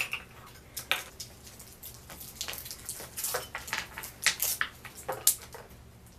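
Scattered light clicks and crinkles of hands working with spoons, small glass bowls and Starburst candies.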